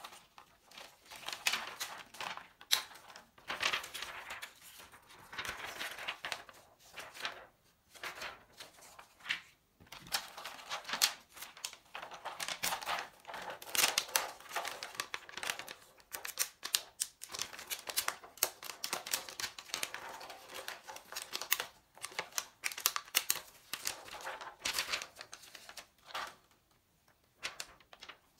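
Thin plastic membrane sheets of a membrane keyboard crinkling and crackling as they are peeled apart and handled, with many irregular small clicks. The handling thins out near the end.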